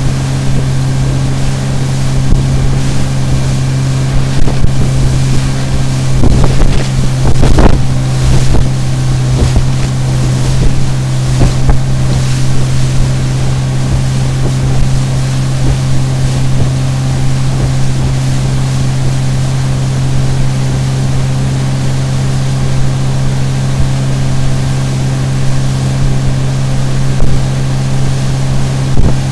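A 50 HP Mercury CommandThrust (Bigfoot) four-stroke outboard running at speed with one steady, unchanging drone, over wind on the microphone and water rushing past the hull. A cluster of knocks comes about six to eight seconds in.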